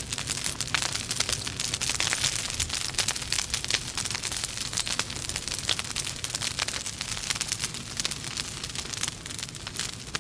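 Wood logs burning in a fireplace, crackling: a dense, irregular run of small pops and snaps over a steady hiss.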